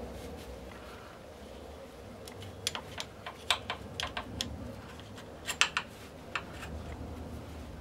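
Irregular light clicks and taps, about a dozen in quick uneven succession, from hands and metal working at a motorcycle engine's side cover as it is being pried loose.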